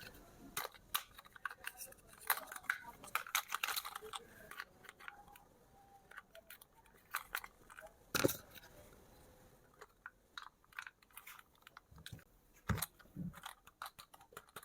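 Irregular crackles, clicks and taps of plastic toy packaging and parts being handled during unboxing, with a sharper knock about eight seconds in and another near the end.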